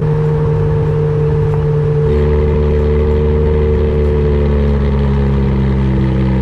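Ferrari 430 Scuderia Spider 16M's 4.3-litre V8 running through an aftermarket Capristo exhaust with its valves open, heard close to the tailpipe. The car cruises at low, steady revs, and the note turns deeper and fuller about two seconds in.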